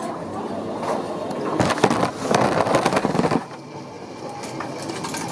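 Rattling rumble of a plastic security tray rolling along conveyor rollers, loudest for about two seconds in the middle, over a steady background hubbub.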